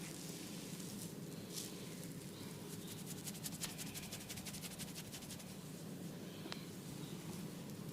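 Hands massaging an oiled scalp and hair: rustling, rubbing strokes, with a fast run of quick strokes in the middle and a couple of small clicks.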